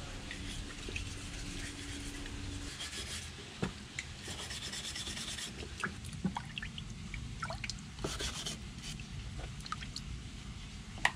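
Wet wooden offcuts being scrubbed by hand in a plastic tub of water: rubbing and swishing with small drips and splashes, in a few busier spells. A sharp click near the end.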